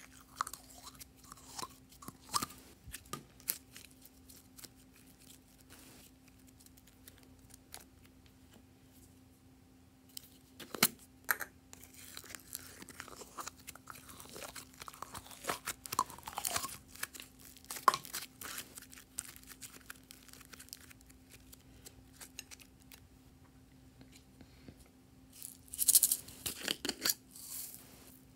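Glossy slime squeezed by hand out of soft plastic containers into a bowl of slime and sequins: irregular sticky crackling and tearing sounds, with a louder burst of crackles near the end.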